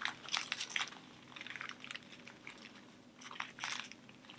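Small zip-lock plastic baggies filled with diamond-painting drills crinkling and crackling as they are handled, in three short bursts.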